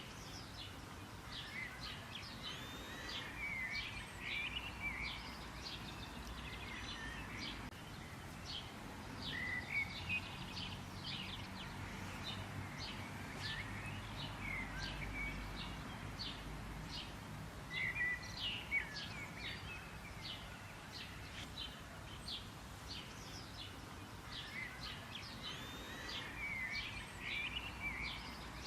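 Several birds chirping and singing together: a steady stream of short, high chirps with some curving, warbled calls mixed in, over a faint low rumble.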